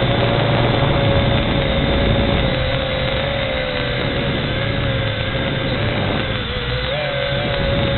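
V686G quadcopter's motors whining in flight, a steady tone that wavers a little in pitch, over heavy wind rumble on the microphone.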